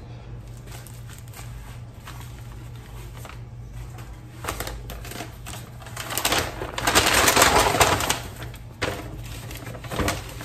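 Handling noise: a few light clicks and taps, then a loud rustling scrape for about two seconds, and a sharp knock near the end.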